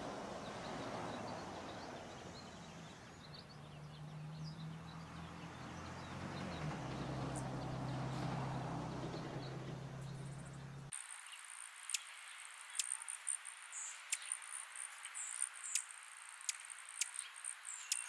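Outdoor ambience: a soft rushing hiss that swells and fades, under a low steady hum. About eleven seconds in, it changes abruptly to a thin, steady, high-pitched insect-like buzz, broken by sharp irregular ticks or chirps.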